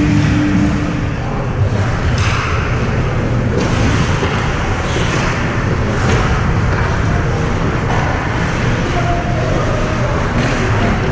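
Ice hockey rink ambience during play: a steady low rumble with passing swells of scraping, hissing noise from skates on the ice.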